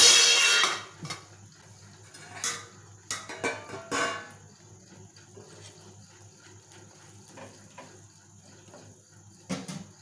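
A cooking utensil scraping and clinking against a pan while an omelette is spread over bread: a loud scrape right at the start, a cluster of short scrapes and knocks between about two and four seconds in, and one more near the end.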